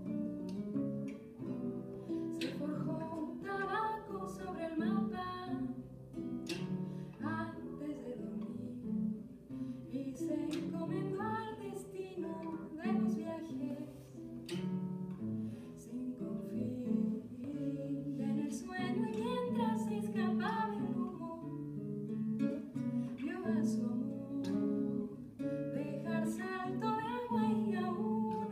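A woman singing a song in phrases while accompanying herself on an acoustic guitar, plucking the strings.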